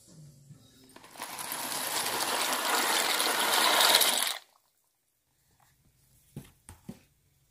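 Dry penne pasta pouring into a pan of boiling water, an even noise that grows louder over about three seconds and cuts off suddenly. A few faint clicks follow near the end.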